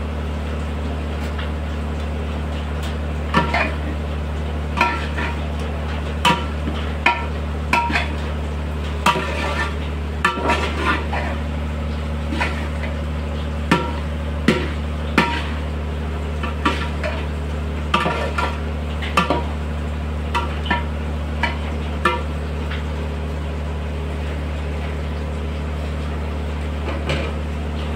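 A metal spoon clinking and scraping against a large aluminium pan as a dry vegetable stir-fry is stirred, in irregular knocks about once or twice a second that thin out near the end. A steady low hum runs underneath.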